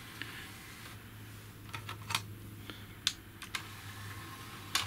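A handful of sharp clicks and light clatter as a disc is set into the open tray of a Harman Kardon HS500 DVD receiver, with the tray starting to close near the end. A steady low hum runs underneath.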